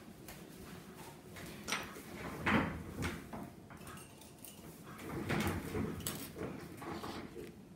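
Nail-stamping tools and plate being handled: two bouts of scraping and rubbing, about two and five seconds in.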